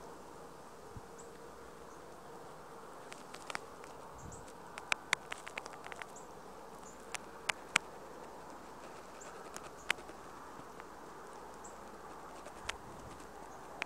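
Insects buzzing steadily, with a short high chirp repeating every second or two. A scatter of sharp clicks, the loudest sounds, falls in the middle.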